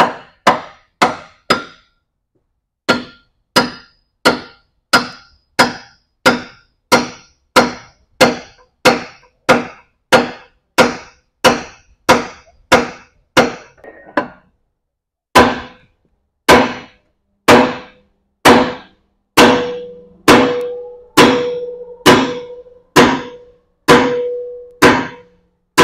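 Hammer blows on steel, metal on metal, struck in a steady run of about two to three a second. The strikes pause briefly about two seconds in and again around fourteen seconds, then come slower, each later blow leaving a short metallic ring.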